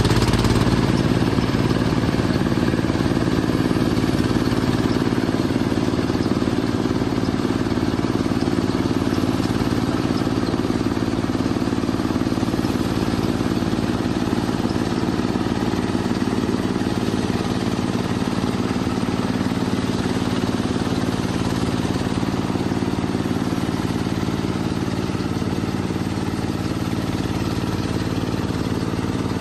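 Mini paddy combine harvester's engine running steadily with a constant hum and mechanical noise.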